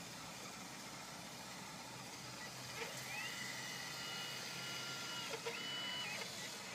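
Electric drive of a radio-controlled Liebherr 576 wheel loader model whining as it drives. About three seconds in the whine rises in pitch, holds steady for about two seconds, then drops away, and a shorter whine follows near the end.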